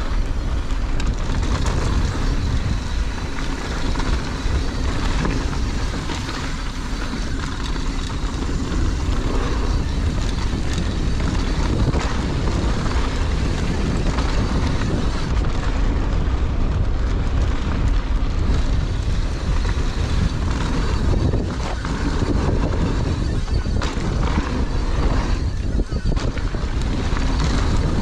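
Wind buffeting the microphone during a downhill mountain bike run, a steady heavy rumble, with scattered knocks and rattles from the bike over the rough trail.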